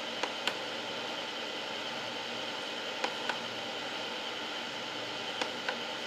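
Mood-light push button on top of a small plastic ceramic space heater clicking, pressed three times about two and a half seconds apart, each press a quick double click, as the light steps through its colours. A steady hiss runs underneath.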